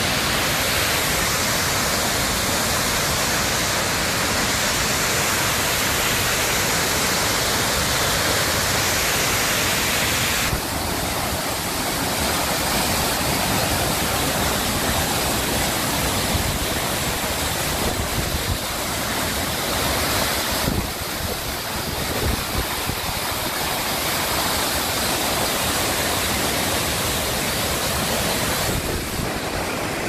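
Tortum Waterfall pouring over a rock face: a steady rush of falling water. Its tone changes abruptly about ten seconds in and again about twenty seconds in.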